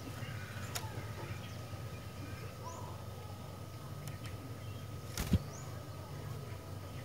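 Faint, scattered chirps of a sooty-headed bulbul (kutilang) over a steady low hum, with a sharp knock a little past five seconds in.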